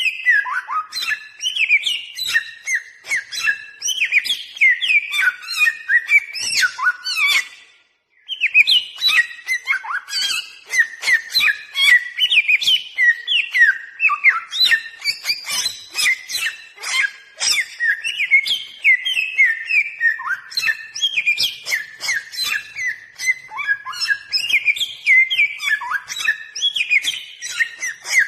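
Bare-throated whistler singing a fast, unbroken run of varied whistled notes and chirps, with a brief break about eight seconds in.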